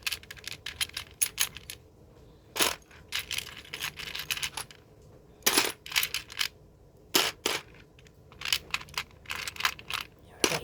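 Small plastic marble-run pieces clicking and clattering as they are handled and dropped onto a plate, in quick clusters of light clicks with a few louder clatters.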